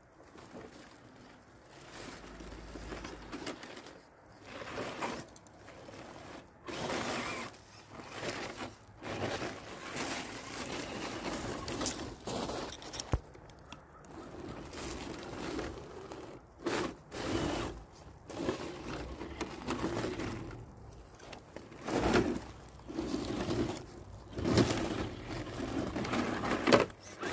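Electric motor and geartrain of an Associated Electrics Element Trailrunner RC crawler whining in repeated short bursts of throttle, stopping and starting as it works through a rough, muddy trail section.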